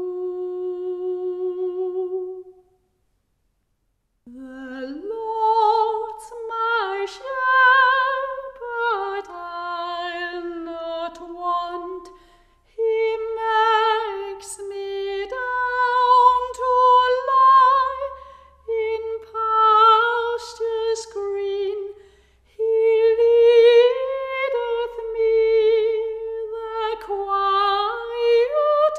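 A woman's voice singing a slow, wordless melody with strong vibrato, in long held phrases. It stops briefly about three seconds in, then starts again with an upward slide.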